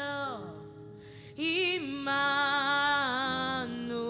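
Slow worship song: a singer holds a long wavering note that slides down and fades about half a second in, then starts a new drawn-out sung phrase with vibrato over steady sustained accompaniment chords.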